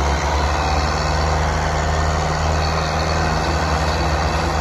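Tractor diesel engine running hard and steady under heavy load, pulling an overloaded sugarcane trolley; its front wheels lift off the ground and black smoke comes from the exhaust.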